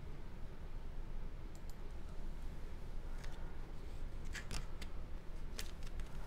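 Scattered light clicks and crinkles of cardstock being pressed and handled on a tabletop, over a low steady hum.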